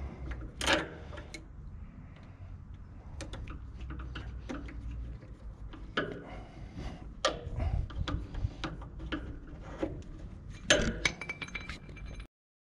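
Irregular small metallic clicks and taps of a hand tool driving a screw into the centre of a hydraulic pump pulley to push it off the pump shaft, with a few louder knocks among them and a low rumble underneath.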